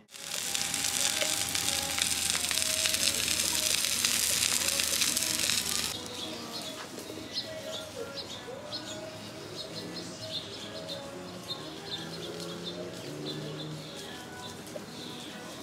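A loud, steady hiss for about the first six seconds, cut off abruptly, then small birds chirping repeatedly over a quieter outdoor background.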